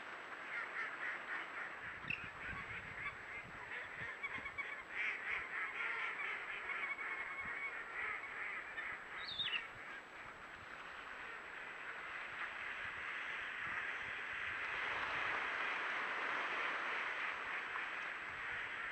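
A large flock of ducks calling: many overlapping quacks and honk-like calls. A brief falling whistle comes about nine seconds in, and in the second half the calls blur into a denser, steady din.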